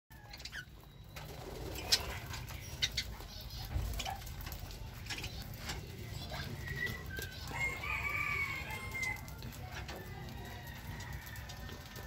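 Caged budgerigars chirping in many short, sharp calls with wing flutters, and a longer drawn-out bird call about eight seconds in.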